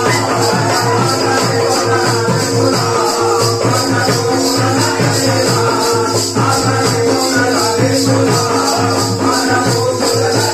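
Live song amplified over a loudspeaker: a man singing into a microphone over a steady drum beat and rhythmic shaking, jingling percussion, with steady held notes underneath.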